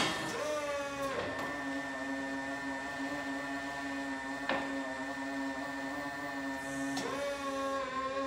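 Yale ERP30 electric forklift running while it manoeuvres: a steady whine of several held tones from its electric motors, which shifts in pitch a few times, with sharp clicks at the start and about halfway.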